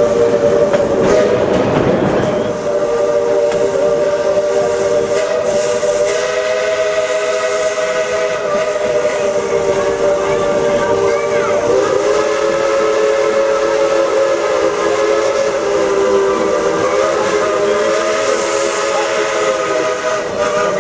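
Steam locomotive's chime whistle sounding a chord in one long held blast, with steam hissing behind it. The notes dip and shift slightly about twelve seconds in as the whistle valve is worked.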